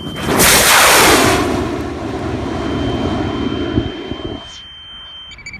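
Loki M2550 booster motor igniting and lifting a high-power rocket off the pad: a sudden loud blast of rushing noise that carries on steadily for about four seconds, then drops away. A steady high electronic tone sounds under it, and beeping starts near the end.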